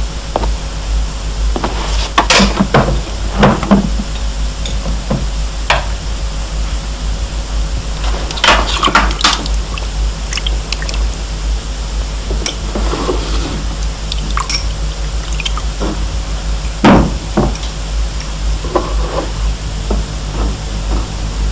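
A glass bottle and drinking glasses knocking and clinking on a wooden table, with saba (grape-must syrup) poured from the bottle into the glasses. There are several sharp knocks, the loudest about 2, 8 and 17 seconds in, over a steady low hum.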